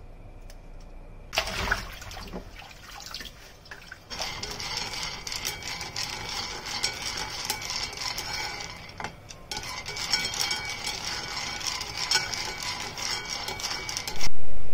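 Peanuts being stirred with chopsticks in a frying pan as they dry-roast: a dense, steady rattle of many small clicks. Near the end a loud sound starts suddenly and fades away.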